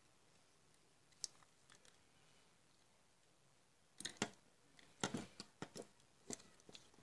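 Handling noise from a compact fluorescent bulb's plastic base and its small circuit board: one light click about a second in, then a quick run of clicks and knocks from about four seconds in as the parts are turned and handled.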